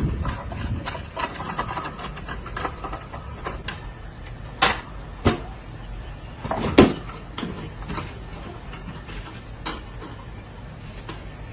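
Scattered sharp clicks and knocks, a few close together about halfway through and one more near the end, over a steady high whine.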